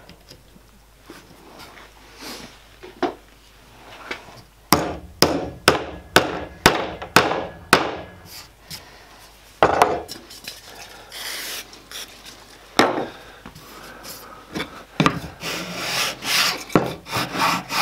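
A small hammer tapping a steel T-nut down into a countersunk hole in a plywood board: a run of about eight quick, sharp taps, then a couple of single knocks. Near the end, a plywood block is rubbed back and forth over the board with a scraping sound.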